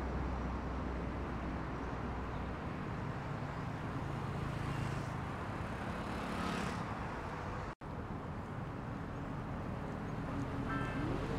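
Several motorcycle engines idling together over traffic noise. The sound cuts out for an instant, and near the end a single motorcycle engine revs up and back down.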